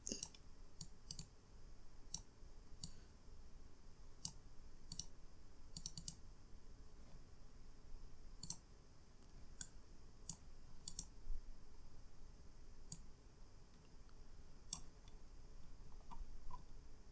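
Computer mouse buttons clicking at irregular intervals, some clicks in quick pairs.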